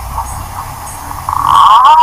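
Green pigeon (punai) song. The first part is quieter with a low background rumble. About one and a half seconds in, a loud run of warbling, wavering whistles begins.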